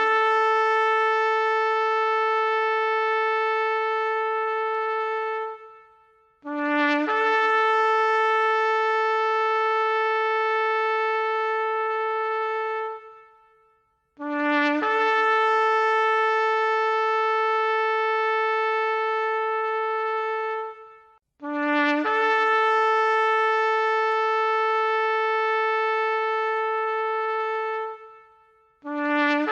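Shofar sounding a series of long blasts, each about six seconds: a brief lower note that jumps up to a held, steady tone. Four blasts follow one another with short gaps, and a fifth begins near the end.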